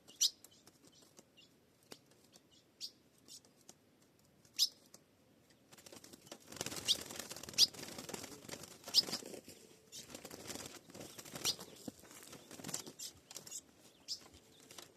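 Ultramarine grosbeak (azulão) giving short, sharp call notes every second or so; from about six seconds in, a bird's wings flutter rapidly and keep on, with more call notes over it.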